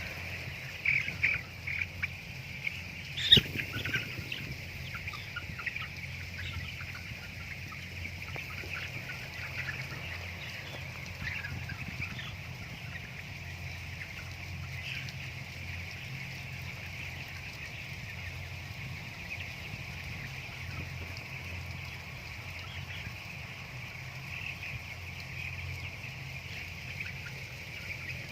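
A flock of broiler chickens cheeping steadily. There are a few louder sounds in the first couple of seconds, a sharp knock about three seconds in, and a low steady hum underneath.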